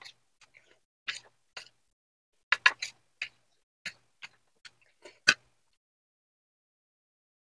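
Close-up eating sounds: irregular mouth clicks and smacks of chewing, about a dozen over five seconds, then stopping.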